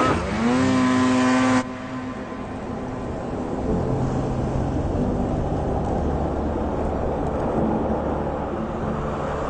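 Snowmobile engine revving: its pitch dips and climbs, then holds high for about a second and a half before cutting off abruptly. A low, steady droning rumble follows.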